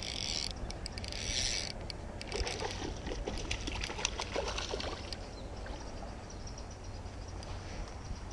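Fly reel ratchet buzzing in two short bursts as line is pulled off the reel by hand, then ticking irregularly for a few seconds, over a steady background of running stream water.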